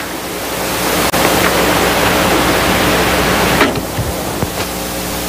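A steady, loud hiss with a low hum under it.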